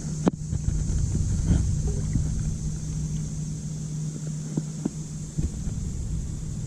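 A steady low hum over a rumble of wind on the microphone, with a few light clicks, the sharpest about a third of a second in.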